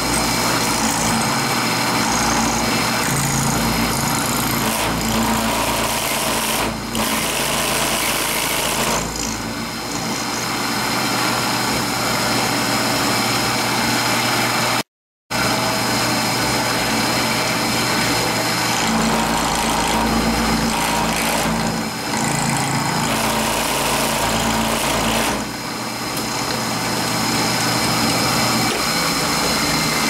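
Milling machine with an end mill cutting through a brass padlock body: the spindle motor running steadily with a steady high whine under the noise of the cut. The sound cuts out for an instant about halfway through.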